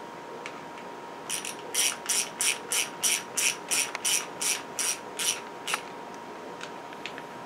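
Ratcheting hand driver clicking as screws are driven back into a plastic lawnmower carburetor: a run of about fourteen short ratchet strokes, roughly three a second, stopping about six seconds in.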